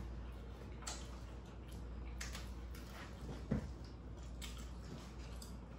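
Quiet eating sounds: scattered light clicks and taps of plastic forks against foam takeout containers, with one short, louder low thump a little past halfway, over a steady low room hum.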